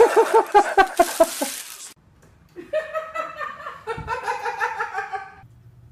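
Laughter: a quick run of rhythmic laughing in the first second and a half, then after a short pause a second, higher-pitched run of laughing.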